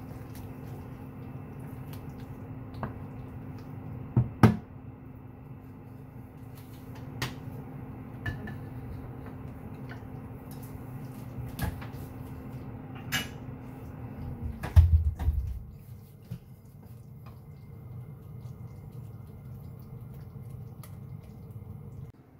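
Wooden spatula stirring a thick coconut-milk stew in a wok, knocking against the pan now and then, over a steady hum. The hum stops about 14 seconds in, followed by a heavier low thump, the loudest sound.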